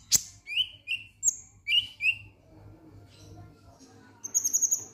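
Caged kolibri ninja sunbird calling: short, sharp 'ngek' notes, some in quick pairs, in the first couple of seconds. After a pause it gives a fast run of very high, thin notes near the end.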